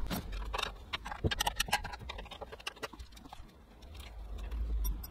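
A run of light, irregular clicks and taps from a hand tool on the bolts holding the battery kill switch as they are undone. The clicks are densest in the first two seconds and thin out after.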